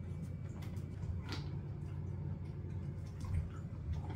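Plastic treat-dispensing wobble toy nudged by a dog on a tile floor: a few scattered light clicks and taps as the toy rocks and kibble drops onto the tiles, over a steady low hum.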